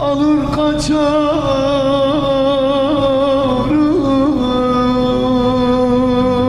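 A man singing a Turkish song into a microphone over instrumental backing. His voice wavers through ornamented turns, then settles into one long held note from about four seconds in.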